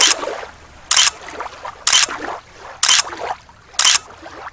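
Rhythmic water splashing: a short, sharp splash about once a second, with softer sloshing between.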